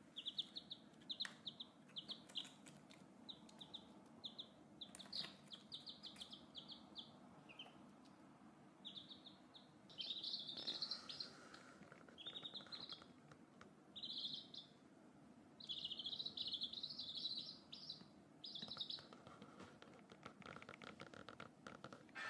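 A small bird chirping in short, quick runs of high chirps, over and over, with longer trilling runs near the middle of the stretch.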